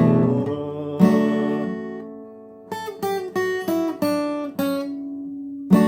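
Acoustic guitar: two strummed chords left to ring, then a quick run of single plucked notes, and a final chord struck near the end and left ringing.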